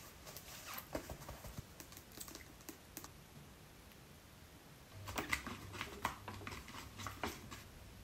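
Quiet handling sounds of mixing hair dye: light clicks, taps and scrapes of a plastic dye bottle and a tint brush against a plastic mixing bowl, busiest from about five seconds in.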